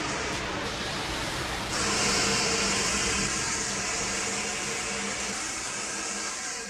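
Fire extinguishers discharging: a continuous rushing hiss that jumps louder and brighter about two seconds in. A faint low steady drone runs underneath.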